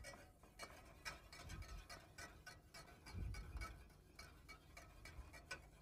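Wire whisk ticking faintly against a stainless saucepan, several light clicks a second, while butter is whisked into a beurre blanc in a water bath. Two soft low thumps, about a second and a half and three seconds in.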